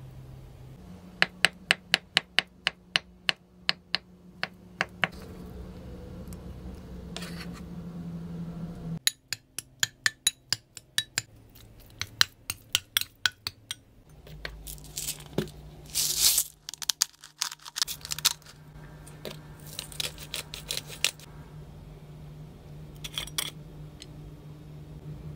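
A metal spoon clinking and scraping against a glass bowl while mashing avocado: runs of quick sharp taps, about three or four a second, with longer scrapes midway. Near the end, a few clicks from a glass spice jar of garlic powder being shaken over the bowl.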